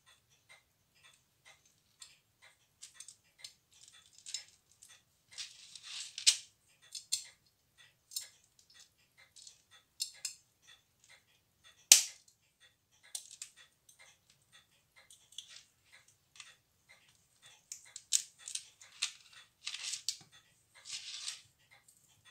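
Tissot pocket watch ticking in a rapid, even beat, with louder bursts of ratcheting clicks as its crown is turned and a single sharp snap about twelve seconds in.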